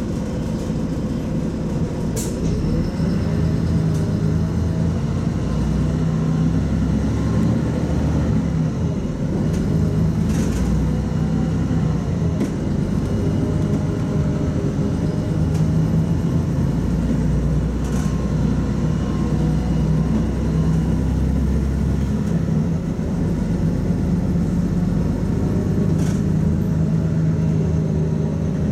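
Cabin noise of a LiAZ-5292.22 low-floor city bus under way: the diesel engine's drone and the road rumble, with the engine pitch rising and falling as the bus speeds up and slows. A few short sharp clicks sound over it.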